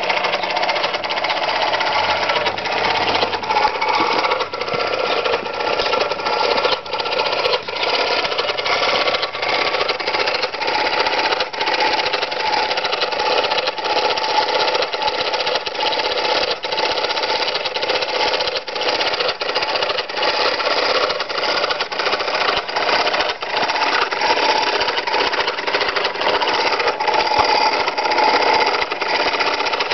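Small David Auld marine steam engine in a model steam pinnace running under steam, giving a fast, even mechanical clatter with no letup.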